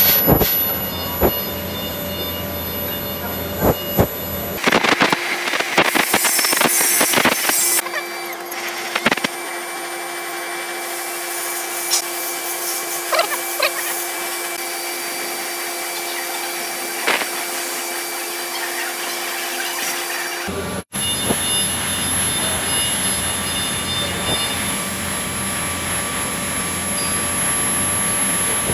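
TIG welding: a steady buzzing hum with high held tones, with scattered clicks and taps. The character changes abruptly about five seconds in, when the low rumble drops away, and again about 21 s in, when it returns after a momentary dropout.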